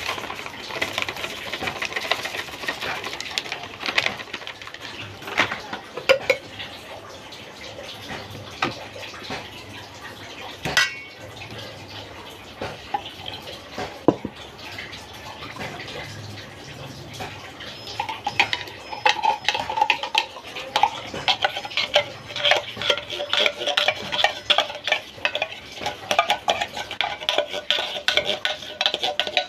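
Metal spoon and utensils clinking, knocking and scraping against a stainless steel mixing bowl, with scattered clinks at first and busier, denser clatter in roughly the last third.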